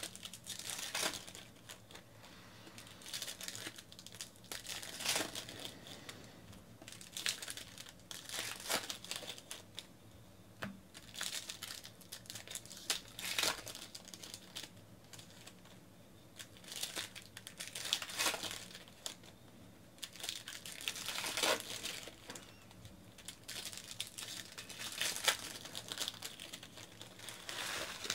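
Foil wrappers of baseball card packs crinkling and tearing as the packs are ripped open by hand, in irregular bursts of rustle every second or two.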